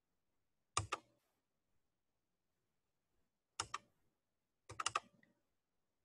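Sharp clicks in three quick clusters of two or three, about a second in, at three and a half seconds, and near five seconds, like computer keys being pressed.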